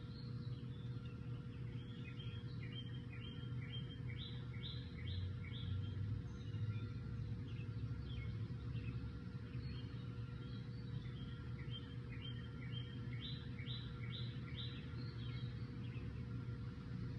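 A songbird singing two phrases of short, quickly repeated notes, over a steady low rumble and a faint steady hum.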